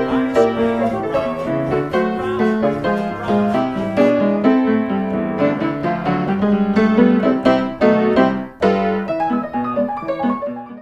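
Background piano music, a steady run of notes that cuts off near the end.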